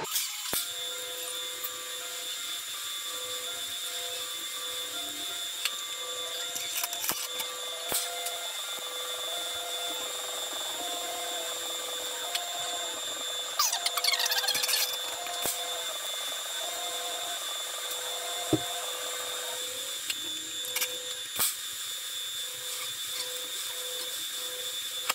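TIG welding arc buzzing steadily as filler rod is fed into the weld pool, with a soft pattern repeating about once a second and a few sharp clicks.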